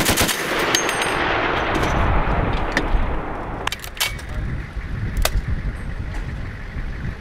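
The last rounds of a burst from a Browning M2 .50-calibre heavy machine gun, its report echoing and dying away over about three seconds. A handful of separate sharp cracks follow, over a low rumble.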